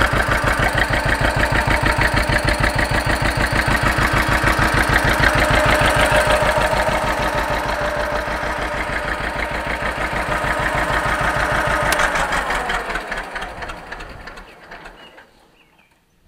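John Deere 530's two-cylinder engine, freshly overhauled, running with a steady, even popping beat as it warms up. About twelve seconds in it is shut off, and the beat slows and dies away over a few seconds until it stops.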